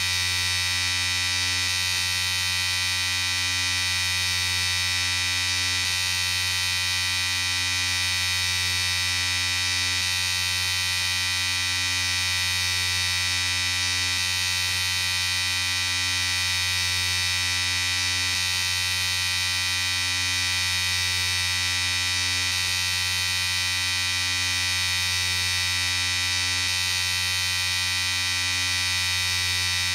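Electric shaver running with a steady buzz.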